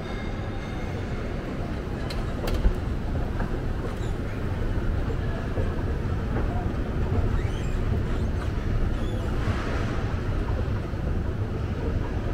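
Steady low rumble of a moving escalator being ridden down, with one short thump between two and three seconds in.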